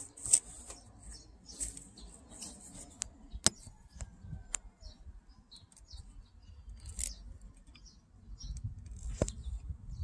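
Hands working at a motorcycle's carburetor linkage: scattered sharp clicks and small scrapes, with many short, faint, high squeaks and a low rumble underneath.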